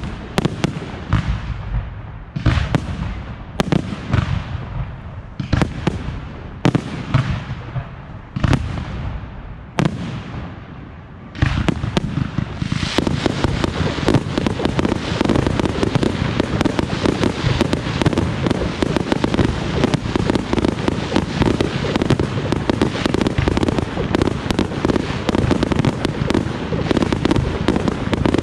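Fireworks display: aerial shells bursting one after another, about one loud bang a second, each with a fading rumble, then from about eleven seconds in a dense, continuous barrage of rapid popping and crackling.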